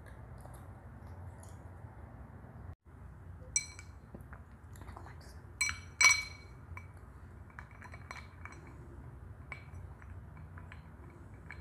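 Glass bowl clinking as fingers scrape clay paste out of it: a few sharp ringing clinks, the loudest pair about six seconds in, among lighter ticks and scrapes.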